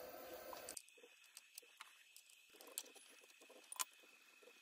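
Near silence broken by a few faint clicks and taps of a small wrench being fitted against the router's collet nut and spindle flats, the sharpest about four seconds in.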